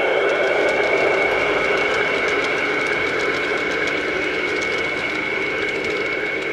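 G-scale model train, a Rhaetian Railway Krokodil locomotive hauling coaches, running past on garden-railway track: a steady running noise with faint repeated clicking of wheels over the rails, slowly growing fainter as it moves away.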